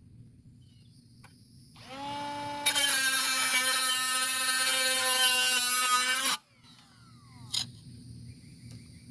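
A small electric angle grinder spins up, then cuts into the thin sheet metal of a tin can for about three and a half seconds before it cuts off abruptly. A single short clink follows a second later.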